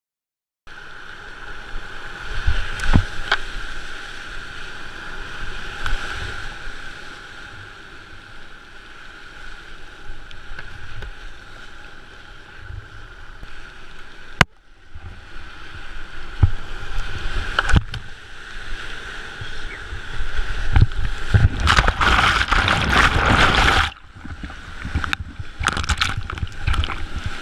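Whitewater rapid rushing around a kayak, heard from on board, with scattered knocks and splashes of paddle strokes. Near the end the water gets much louder as the boat plunges through heavy spray, then cuts off suddenly.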